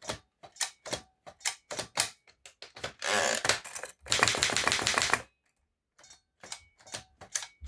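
Remington Portable typewriter mechanism being worked: a series of sharp separate clicks, then two runs of rapid, dense clicking and ratcheting about three and four seconds in, then a few more scattered clicks. This is typical of the backspace key stepping the carriage back toward the start of the line.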